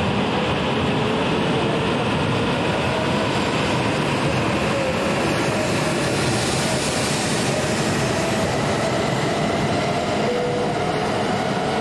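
E6-series Komachi Shinkansen train pulling out of the station and gathering speed. A steady rush of running noise carries a whine that rises slowly in pitch as it accelerates.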